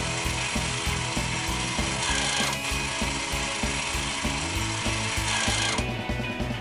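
Toy claw machine's motor and gears whirring with a ratcheting grind as the claw works, stopping near the end, over a repetitive electronic tune with a steady beat.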